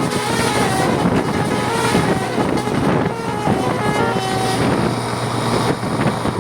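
A bus's Basuri telolet musical air horn plays a melody of short held notes that step up and down in pitch, over a steady low engine rumble and road noise.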